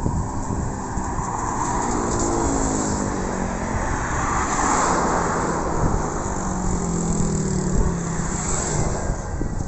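Road traffic passing close on a bridge: vehicle engines and tyres swelling to a peak about halfway through, their engine tones falling in pitch as they go by.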